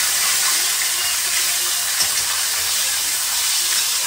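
Flour-coated chicken wings shallow-frying in hot oil in a frying pan, sizzling with a steady hiss. A faint click about two seconds in.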